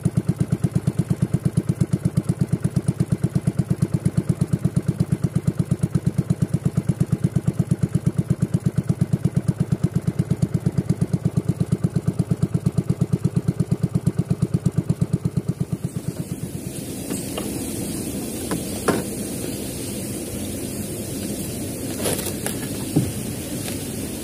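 A small boat's engine running with a steady, rapid chugging beat, cutting out about two-thirds of the way through. After that, rushing river water with a few sharp knocks.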